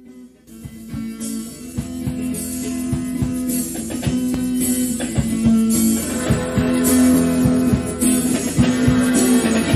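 A band's instrumental song intro: guitar over a drum kit, in a 1985 basement recording. It starts about half a second in and gets louder over the first couple of seconds, then runs on with a steady beat.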